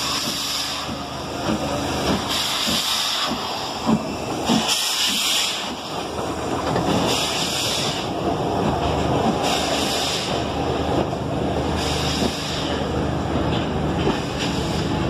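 LNER B12/3 4-6-0 steam locomotive 8572 and its goods wagons passing slowly on the next track, wheels rumbling and knocking, with surges of steam hiss about every two seconds.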